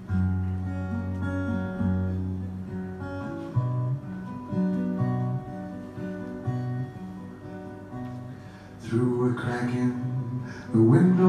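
Acoustic guitar playing an instrumental passage of a song: picked notes over sustained low notes, growing louder with fuller strummed chords near the end.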